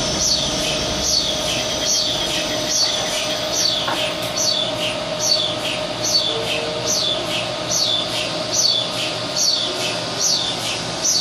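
A 10 kW HTS DC induction heating machine running, with its S45C steel billet turning in the superconducting magnet's field. A steady hum runs under a high, falling squeak that repeats about one and a half times a second.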